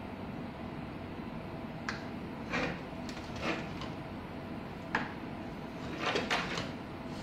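Handling clatter as an air-conditioner circuit board, with its wires and plastic housing attached, is picked up and shifted on a wooden bench and a soldering iron is set down. There are a handful of light knocks and rattles, most in a cluster near the end, over steady background noise.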